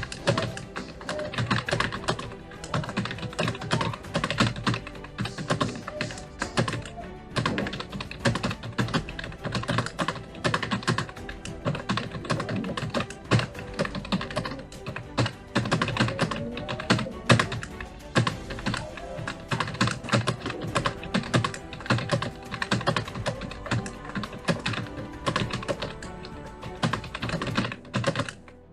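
Fast, continuous typing on a Prodot computer keyboard: a dense, uneven clatter of key strokes, with background music under it.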